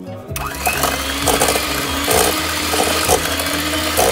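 Electric hand mixer switching on about a third of a second in, its motor whining up to speed and then running steadily, with repeated knocks as the beaters hit the banana chunks and the stainless steel bowl.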